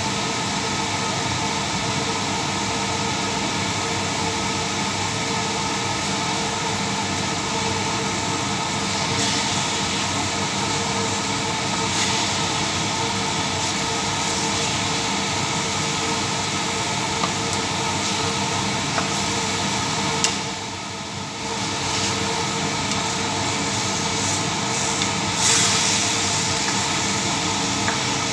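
Chicken pieces sizzling in a stainless steel frying pan over a gas burner, a steady hiss with a low hum under it. In the second half there are a few light scrapes and clicks of a spatula as the chicken is stirred.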